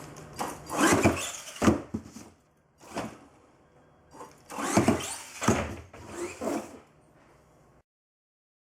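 Electric RC car's 550-size brushed motor whirring in short throttle bursts, overvolted on an 11-volt 3S LiPo, with a few sharp knocks among them. The sound cuts off suddenly near the end.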